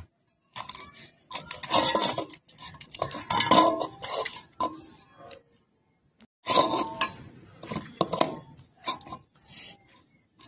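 Bangles clinking against a stainless steel bowl and each other while dough is kneaded by hand, in irregular bursts with a pause of about a second just past the middle.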